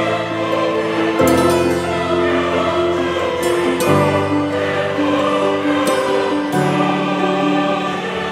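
Slow background music of long held chords that change every one to three seconds.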